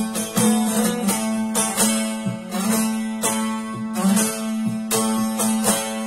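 Bağlama (long-necked saz) played solo: a quick run of plucked and strummed notes over a steady droning note.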